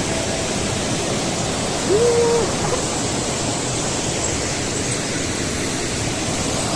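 Steady rushing of water, with one short hooting call about two seconds in.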